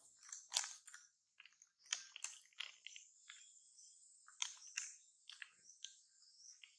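Irregular soft clicks and crunching mouth sounds from a monkey close by, over a steady high-pitched buzz.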